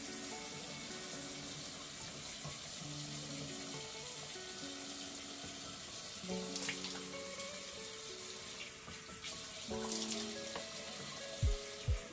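Steady running water, with background music playing a slow melody over it.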